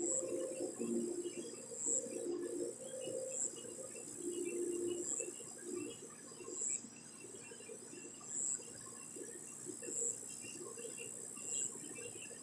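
Evening insect chorus: a steady high buzz that pulses about once a second, with scattered small chirps and some lower drawn-out calls in the first half.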